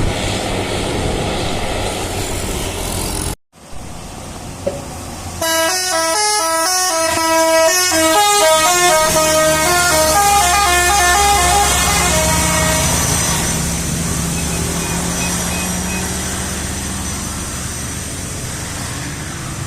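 A bus's Basuri telolet horn plays a quick tune for about seven seconds, its tones stepping from pitch to pitch several times a second, over the bus's engine and road noise. Before the tune, engine and road noise run steadily, cutting out briefly about three seconds in.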